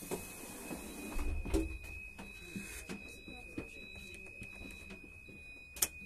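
Passenger-train automatic sliding inter-car doors in operation, with a steady high-pitched whine throughout. A door slides with a hiss during the first second, there is a low thump about a second and a half in, and a single sharp click near the end.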